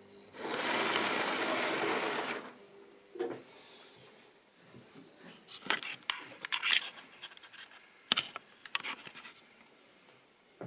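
Handling noise from the camera being picked up and moved: a loud rubbing rush for about two seconds, then a scatter of clicks and knocks as it is carried and set down.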